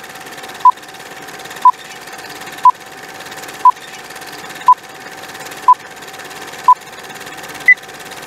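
Film-leader countdown sound effect ticking off seconds: a short beep once a second over a steady hum and hiss, then a single higher beep near the end.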